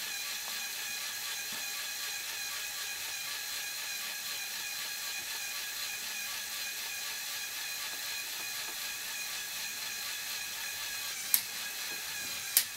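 LEGO Technic Power Functions electric motor driving the crane's gear train, a steady whirring whine as the crane lifts and slews at the same time. Two sharp clicks near the end.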